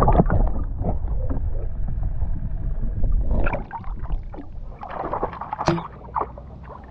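A low rumble that fades out about three seconds in, with scattered knocks and clatter of handling on a boat throughout, busier in the second half.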